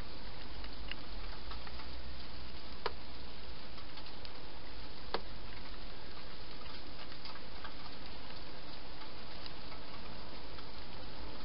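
Wild hedgehog crunching dry food inside a plastic feeding box: irregular faint clicks, with two sharper clicks about three and five seconds in, over a steady hiss.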